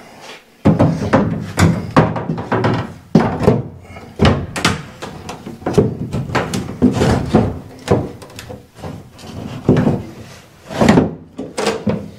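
Plastic bathtub-surround wall panel being pushed and worked into place, giving repeated, irregular thunks and knocks.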